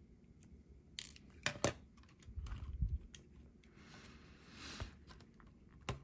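Light plastic clicks and knocks of hands handling a small RC crawler as its plastic body is worked off the chassis, with a few sharper clicks about a second in and a soft rustle near the end.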